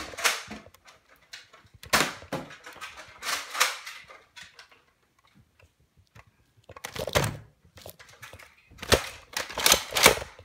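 Several short bursts of clicks and knocks in a small room. There is a quiet spell of about two seconds midway, then a heavier thud, then a rapid run of clicks near the end.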